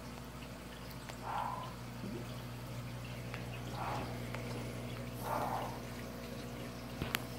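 Aquarium water circulation: a steady low hum with water gurgling and splashing three times, and a few sharp clicks near the end.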